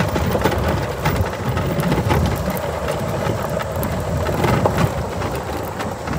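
Golf cart rolling over a loose gravel and chert road: a steady low rumble with many small sharp crunches and clicks of stones under the tyres.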